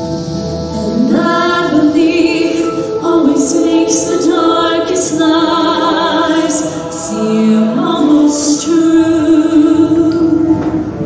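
Mixed show choir of women and men singing in harmony, with long held notes that change pitch every second or so.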